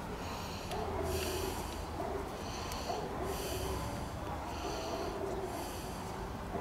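A person breathing heavily through the nose, about four breaths evenly spaced.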